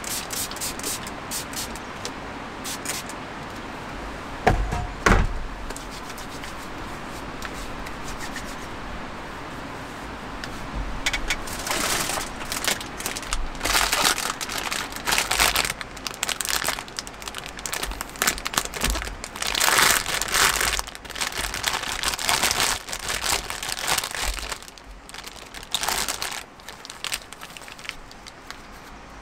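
Crinkling and rustling of something being handled, in irregular bursts from about eleven seconds in until near the end, over a steady background hiss. A couple of sharp knocks come about four to five seconds in.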